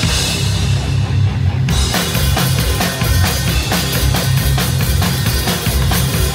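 A death metal band playing live and loud: the drum kit close up over amplified guitars. Just under two seconds in, the drums go into a fast, even run of hits.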